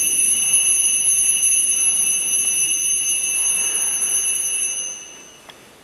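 Altar bells (Sanctus bells) ringing at the elevation of the chalice, marking the consecration: a high, steady ringing that dies away about five seconds in.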